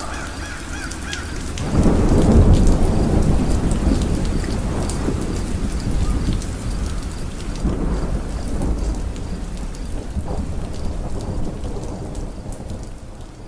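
Recorded thunderstorm: a long roll of thunder swells about two seconds in over steady rain, then slowly fades out.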